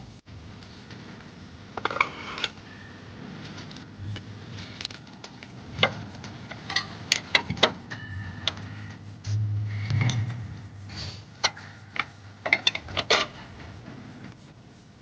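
Irregular clicks and knocks of hand tools and metal suspension parts being handled during strut and shock absorber work, with a brief low hum a little after halfway.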